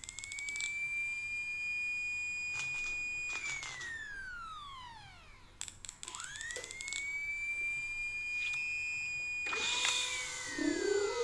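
Small electric power tool whining: twice it spins up to a high steady pitch, runs about three seconds and winds down, with clicking around each start.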